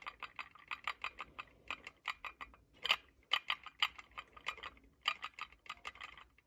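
Ceramic cups rattling against each other as shaking, shivering hands hold them: a fast, irregular run of light clinks, a little louder about three seconds in and again near five seconds.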